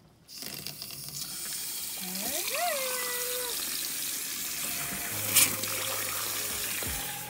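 A new MOEN two-handle bathroom faucet running, its stream of water splashing steadily into the sink basin. About two seconds in, a rising tone holds for about a second. Near the end, a low hum joins.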